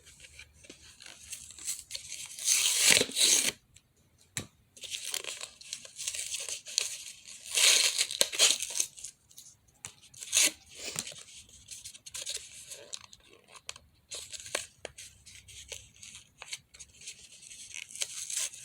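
Packaging being torn and crinkled open by hand, without scissors, in irregular bursts of rustling, loudest twice, with a few sharp clicks between.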